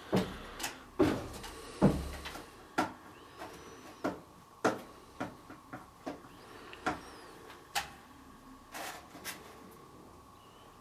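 A string of light clicks and knocks, about one a second, louder in the first two seconds and dying away near the end: small tools and plastic containers being handled on a table while an insect specimen is prepared.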